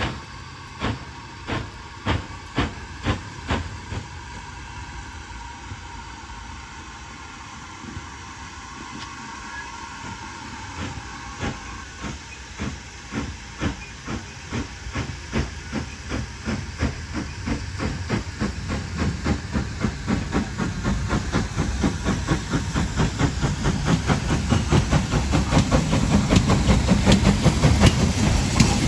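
GWR small prairie 2-6-2 tank engine 5526 working a goods train, its exhaust chuffing in sharp beats. A few spaced beats come first, then a lull of a few seconds, then the beats quicken and grow louder as it draws near, with a low rumble of the engine and wagons passing close near the end.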